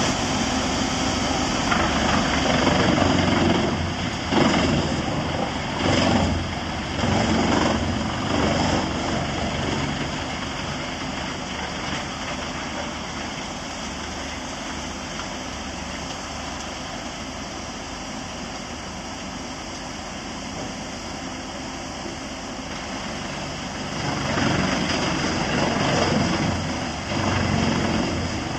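Crawler wood chipper running, its engine steady through the middle stretch, with louder, uneven surges over the first several seconds and again near the end.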